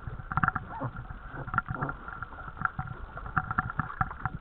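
Small dinghy on choppy open water: irregular knocks and water slapping against the hull, over a steady faint hum.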